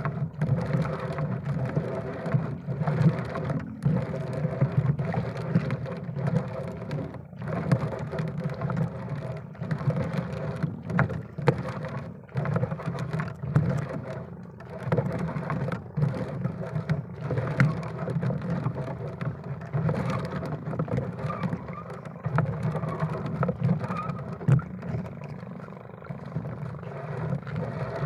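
Small fishing boat's engine running steadily, a low hum with many short knocks and dropouts through it.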